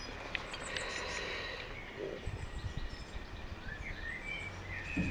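Outdoor background noise with a few short bird chirps in the last second or so, a couple of faint clicks in the first second, and a brief low rumble a little past two seconds in.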